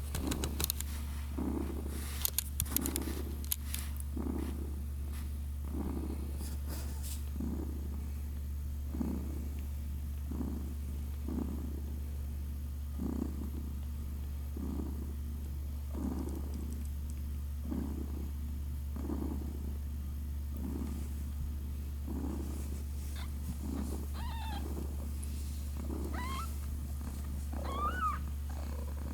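Cat purring: a low, steady drone that swells about once a second with each breath. A few sharp clicks come in the first few seconds, and near the end a newborn kitten gives several short, high mews.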